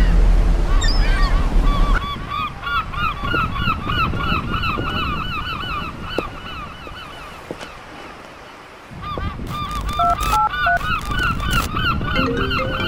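A flock of birds calling, many short calls overlapping in a rapid chatter, which thins out about two-thirds of the way in and then picks up again. It opens with a deep, loud boom lasting about two seconds.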